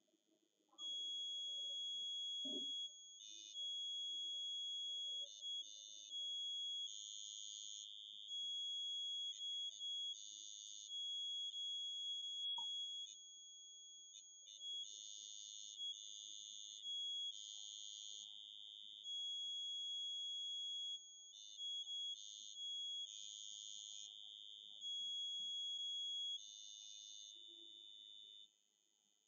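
High-pitched electronic tone, held steady from about a second in until shortly before the end, with louder buzzy stretches cutting in and out over it, a few seconds at a time.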